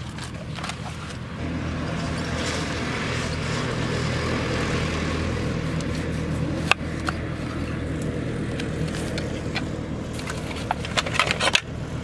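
A steady engine drone runs throughout and grows a little louder about two seconds in. Over it, a knife cutting a pineapple on a wooden chopping board gives a sharp knock near the middle and a quick run of knocks near the end.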